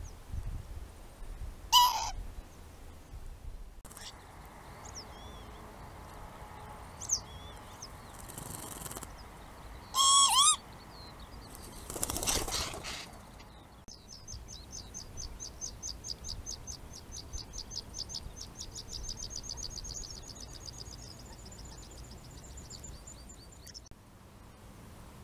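Northern lapwings calling: two loud wheezy slurred 'pee-wit' calls, about 2 s and 10 s in, and a short rush of wingbeats as one flies up past the camera around 12 s. From about 14 s to near the end a small bird sings a fast run of high, thin notes.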